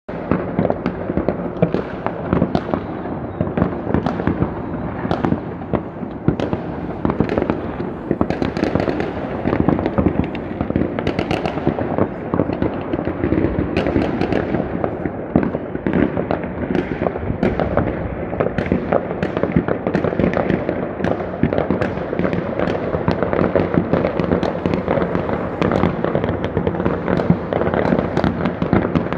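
Many fireworks and firecrackers going off at once across a neighbourhood: a dense, unbroken rattle of bangs and crackles, with no pauses.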